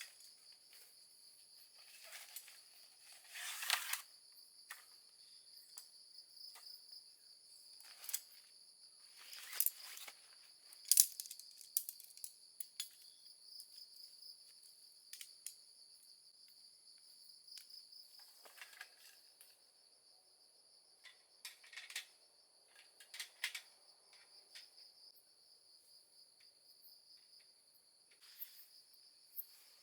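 Crickets trilling in a steady, high, unbroken drone, with scattered short clicks and rustles over it. The sharpest click comes about 11 seconds in, with other clusters near 3.5 and 9.5 seconds.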